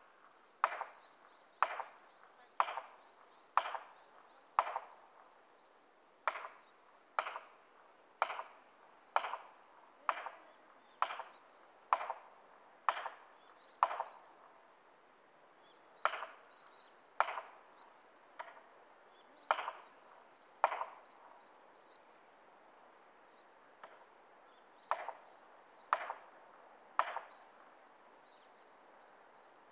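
Sharp blows struck on wood at a tree being felled, about one a second, in runs of five to nine strikes with short pauses between them.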